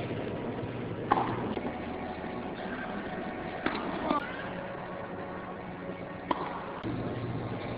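Tennis racquet striking the ball on serves, a sharp pop about a second in, twice close together near the middle, and once more near the end, over a steady murmur of spectators.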